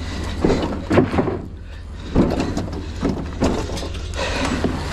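A heavy piece of metal scrap being pushed into a truck bed: several clanks and knocks, with scraping between them, over a steady low rumble.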